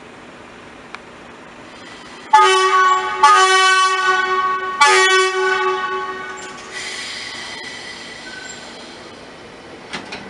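Belgian electric multiple unit sounding its horn in one long blast, sharply renewed twice, as it approaches the level crossing; the horn then fades and the rumble and rail noise of the train passing over the crossing follow.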